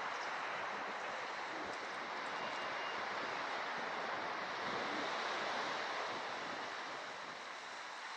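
Mediterranean sea surf washing against a rocky shore: a steady rush that swells a little past the middle and eases near the end.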